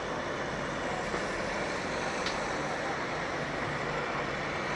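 Steady outdoor background noise, an even rumbling hiss like distant traffic, with a brief faint click about two seconds in.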